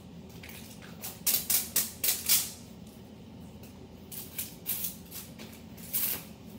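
Plastic wrapping on a Miniverse toy capsule crinkling and rustling in short bursts as its tear tab is pulled, the loudest cluster about a second or two in.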